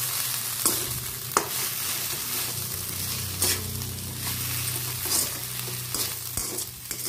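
A spatula stirring and tossing chopped flat beans and crumbled ground toor dal in an oiled kadai over a steady sizzle. The spatula scrapes sharply against the pan about once a second.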